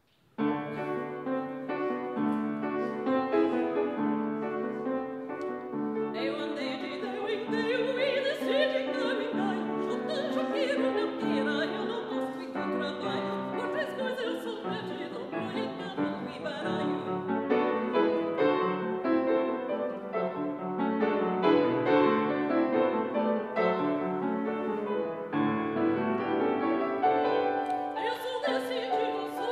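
Piano introduction, then a mezzo-soprano comes in about six seconds in, singing a Brazilian art song with the piano accompanying.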